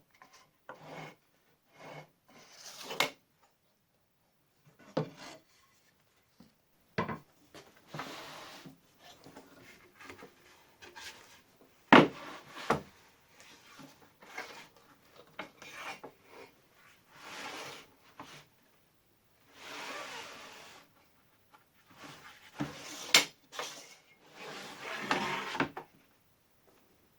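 A folding support leg and workpiece support on a homemade table-saw frame being handled and set: intermittent sliding and scraping of parts, with a few sharp knocks, the loudest about halfway through.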